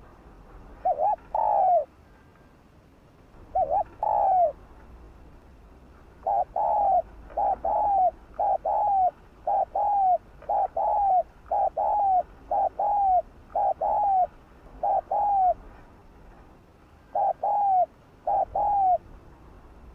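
Spotted dove cooing in short, bending two- and three-note phrases: a couple of spaced phrases, then a quick run of paired coos for about ten seconds, then two more phrases near the end.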